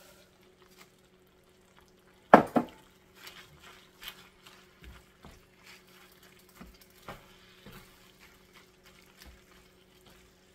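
About two seconds in, a sharp double knock. Then a wooden spoon stirring fettuccine and spinach in a Le Creuset enameled cast-iron skillet gives soft, irregular scrapes and light taps against the pan.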